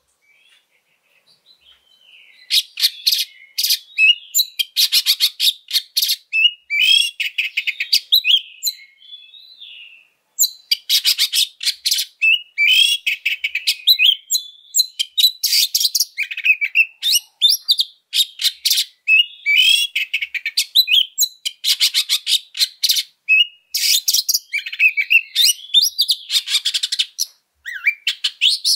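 Oriental magpie-robin singing a loud, continuous full song. Starting about two seconds in, rapid rattling trains of repeated harsh notes alternate with short whistled gliding phrases.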